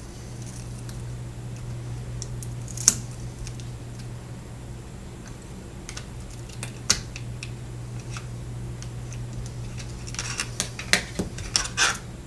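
Plastic pry pick clicking and scraping against a phone's plastic housing as the front LCD assembly is prised loose, with single sharp clicks now and then and a quick run of clicks near the end as it comes free. A steady low hum sits underneath.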